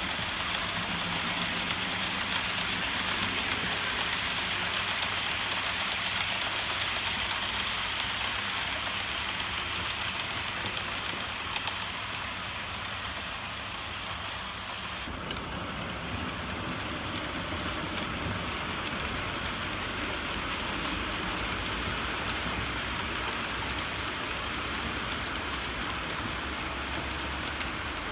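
OO gauge model trains running on the layout: a steady hiss of wheels rolling on the rails, with a low motor rumble, changing in tone about halfway through.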